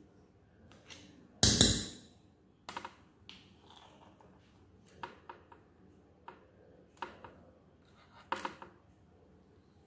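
Metal spoon clinking and scraping against a stainless steel mixing bowl and a baking tray as cookie dough is scooped out and dropped in mounds, in a series of light, irregular clicks. The loudest clatter comes about a second and a half in.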